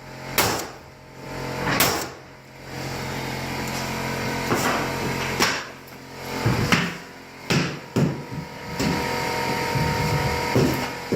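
Scattered knocks and thumps, about ten spread unevenly, over a steady hum that starts a couple of seconds in.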